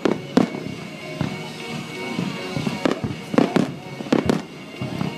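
Aerial fireworks bursting in an irregular series of sharp bangs, about eight in all, with a few coming close together around the middle. Music from a radio plays underneath.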